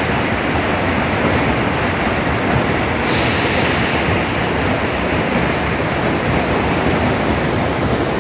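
Hailstorm: hail and heavy rain falling hard, a loud, steady, dense wash of noise.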